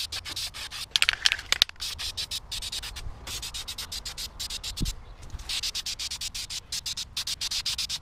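Aerosol spray can of peel-off rubber coating spraying onto an alloy wheel, hissing in rapid short spurts several times a second, with brief breaks about three and five seconds in.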